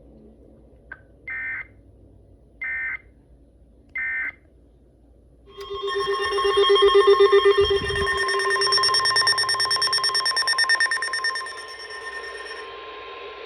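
Weather radio alert tones: three short digital data bursts about a second and a half apart, like the SAME end-of-message code, then a loud pulsing alarm of several tones that near the end gives way to a single steady tone.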